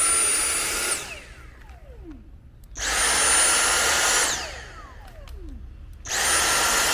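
Dyson cordless stick vacuum's motor switched on in three short bursts, each a high whine with a rush of air that winds down with a falling tone as it is released. The freshly charged battery still powers the vacuum, so it works.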